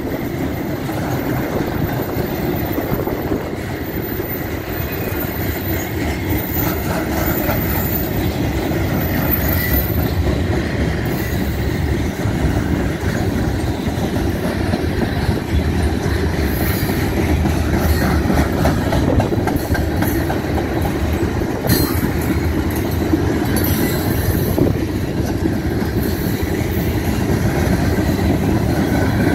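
Freight cars of a CN manifest train, flatcars and then covered hoppers, rolling past close by: a steady, loud rumble of steel wheels on the rails.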